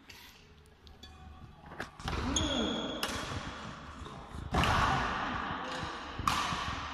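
Badminton rally on a wooden sports-hall court: rackets smacking the shuttlecock, with the three loudest hits about a second and a half apart in the second half. Shoes squeak and feet thud on the floor between shots, and the sounds echo in the large hall.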